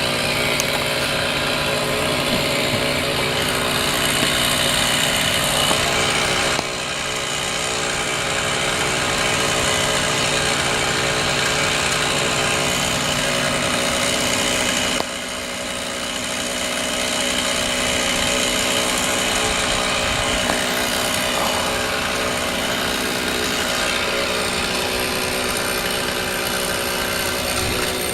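A small engine running steadily at constant speed, changing abruptly about a quarter of the way in and again about halfway through.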